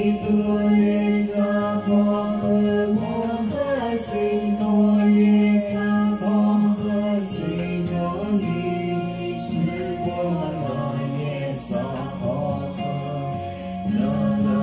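A song: a voice sings a slow melody that slides between notes over a held low accompaniment, with a light high percussion strike about every two seconds.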